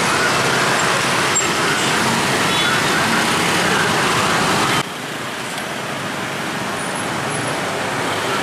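Dense motorcycle and scooter traffic moving through, many small engines running together as a steady wash of traffic noise. About five seconds in it cuts abruptly to quieter, steady street traffic.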